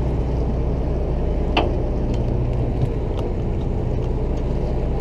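Sportfishing boat's engine running steadily, a low drone with a haze of deck and water noise, and a single sharp click about a second and a half in.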